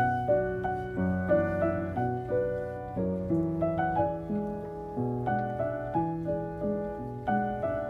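Background piano music: a gentle melody of struck notes, each fading before the next, about two to three notes a second.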